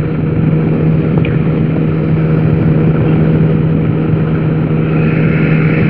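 Weight-shift microlight trike's engine and pusher propeller running at a steady pitch, held at power for level flight on final approach.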